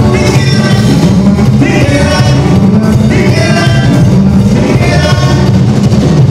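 Loud Latin band music with drum kit and bass, a melody line rising and falling over them in short phrases.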